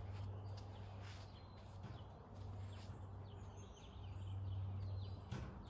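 Faint bird chirps over a steady low hum.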